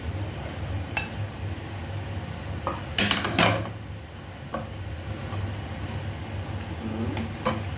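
Dishes and cookware clinking and clattering in a kitchen, a few scattered knocks with a loud cluster of clatters about three seconds in, over a steady low hum.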